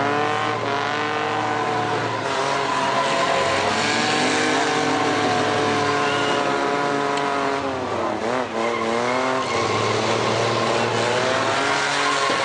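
Several mini-pickup engines revving hard at once in a demolition derby, their pitches rising and falling as the trucks push and ram each other, with a sharp drop and climb in revs about eight seconds in.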